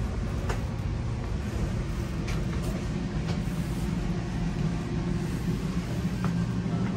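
Steady low rumble inside a moving Metra commuter rail car, wheels running on the rails, with a few light clicks.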